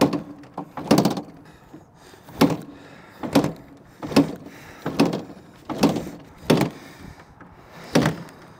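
1978 Kawasaki KZ400 four-stroke twin being turned over on starting fluid without catching: a string of about nine sharp knocks roughly a second apart.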